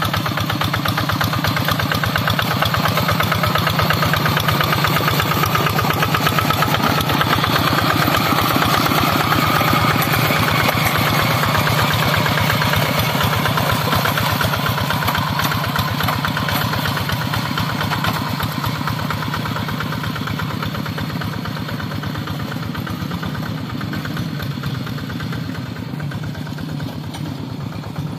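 Two-wheel hand tractor's single-cylinder diesel engine running with a fast, steady chug as the cage-wheeled tractor works through flooded paddy mud. The sound gradually fades over the last several seconds as the tractor moves away.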